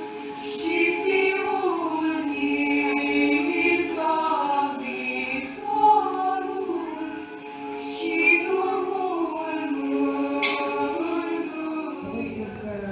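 Women's choir singing, several voices holding slow, sustained chords; the singing drops away near the end.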